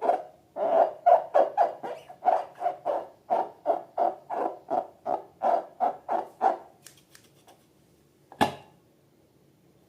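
Slime being squeezed and pressed by hand in a steady rhythm of squelches, about three a second, that stop about two-thirds of the way in. A single sharp tap follows a little later.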